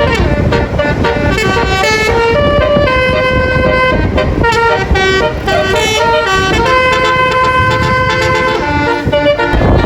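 Bus basuri (telolet) multi-tone horn playing a tune of held notes that change pitch step by step, over a steady low rumble.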